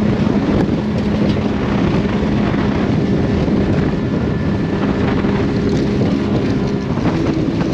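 Boat outboard motor running at speed, a steady engine drone under heavy wind buffeting on the microphone, with occasional light knocks as the hull rides over chop.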